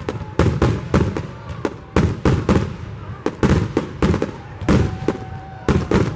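Fireworks display: aerial shells bursting overhead in a rapid, uneven barrage of loud bangs, several a second, each with a short echo.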